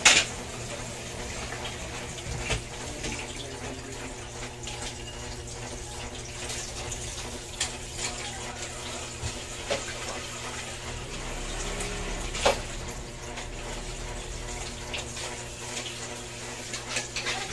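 Steady rush of running water, with scattered light clicks and taps of plastic parts and wiring being handled on a split-type aircon's indoor unit; the sharpest click comes about twelve seconds in.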